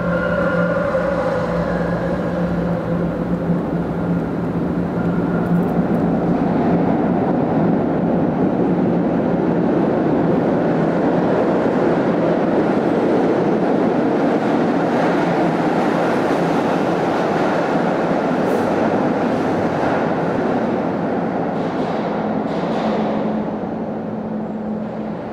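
SEPTA rail car running through an underground station, a long steady rumble of wheels on rail with a brief high whine at the start, dying away near the end.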